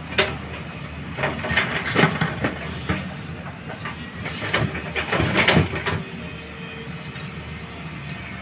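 Heavy construction equipment's diesel engine running with a steady low drone, broken by irregular clanks and scrapes during the first six seconds. After that only the engine is heard.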